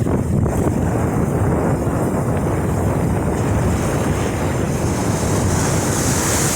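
Wind buffeting the microphone over ocean surf washing on the beach, a steady rumbling noise, with a brighter hiss of breaking water swelling near the end.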